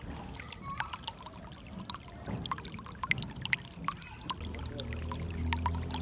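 Water trickling and splashing in a shallow stream, a steady rush dotted with many small, quick plops and drips. About four and a half seconds in, a low steady hum comes in underneath and grows louder.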